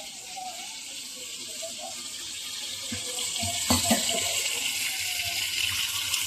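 Tomatoes sizzling as they fry in oil in a pan, a steady hiss. About three and a half seconds in there is a knock, likely a utensil against the pan, and after it the sizzle grows louder.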